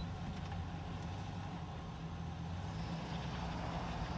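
2006 GMC Sierra 1500 pickup's engine idling steadily with a low, even hum.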